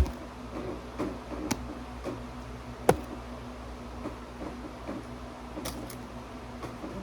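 A few scattered light clicks and taps, the sharpest about three seconds in and a quick pair near six seconds, over a faint steady hum.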